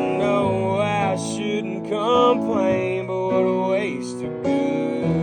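Band music without words: keyboard chords held under a lead melody line that slides and bends between notes.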